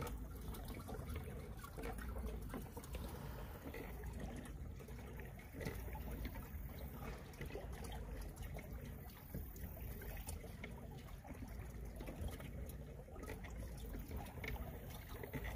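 Quiet water trickling and lapping at the hull of a moving kayak, steady throughout, with a low rumble underneath.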